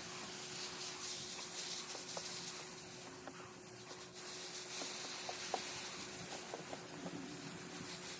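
Garden mesh rubbing and rustling as it is handled over a planted bed, with scattered faint ticks and a faint steady hum underneath.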